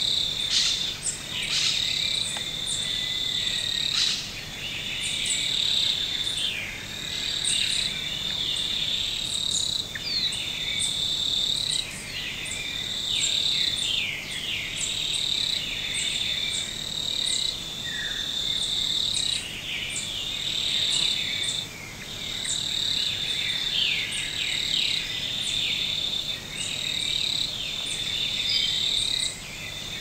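Tropical dry-forest canopy ambience: an insect chorus trilling high and steady in repeated bouts of about two seconds, with many short bird chirps and calls scattered over it.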